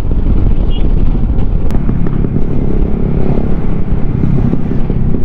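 Wind rumble on the microphone with engine and road noise from a Yamaha XMAX scooter on the move, and one short sharp click about a second and a half in.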